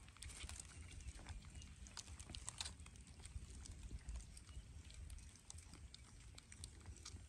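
Faint, scattered crackles and rustles of dry leaves as baby monkeys shift about on the leaf-covered ground, over a low steady rumble.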